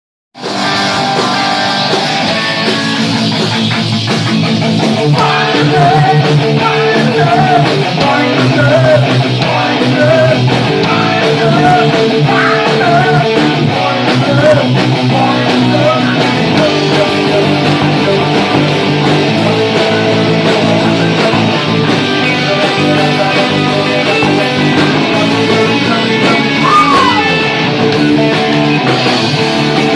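Punk rock song with distorted electric guitars playing steady chords and a singing voice over them, starting abruptly about half a second in.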